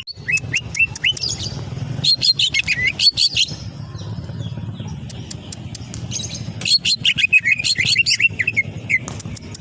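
Cucak ijo (green leafbird) singing in three bouts of rapid, sharp chirps and clicks mixed with short rising whistles, over a steady low background hum.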